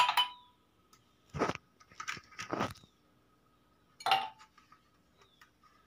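Ice cubes being worked loose from a plastic ice cube tray: a few sharp cracks and crunches, with small clicks between.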